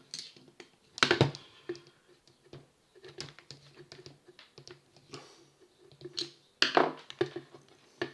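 A screwdriver and a plastic power-drill housing being worked and handled while trying to undo a stuck screw: a string of small clicks and taps, with two louder knocks about a second in and near seven seconds.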